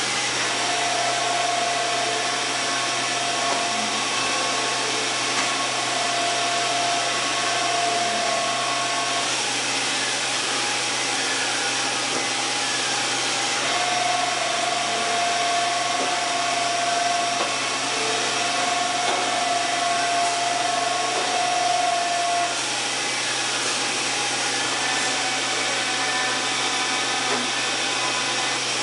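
1995 Fadal 6030HT CNC vertical machining center running with a constant mechanical hiss. Over it comes a steady whine from the axis drive during two long table traverses, one near the start and one from about halfway through, each lasting some eight seconds.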